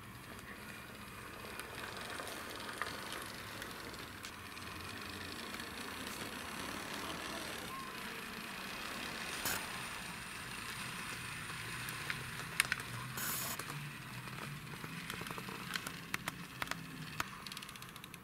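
Die-cast toy police car pushed by hand along a wooden floor, its small wheels and running gear making a steady rolling rush, with scattered sharp clicks and knocks, most of them in the second half.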